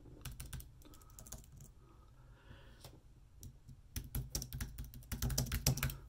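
Typing on a keyboard while working out a quick calculation: scattered key clicks at first, then a fast, dense run of clicks in the last two seconds.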